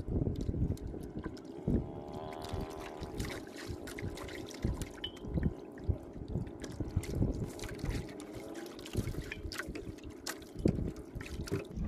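Sea water slapping and trickling against the hull of a small fishing boat, with scattered knocks.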